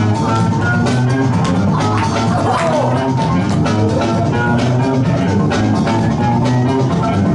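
Loud music with a drum-kit beat and pitched instruments, playing steadily throughout.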